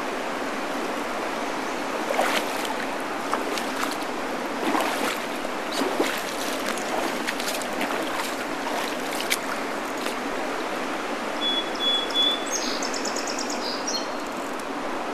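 River current running and rippling around a wading angler's legs, with frequent small splashes and water slaps.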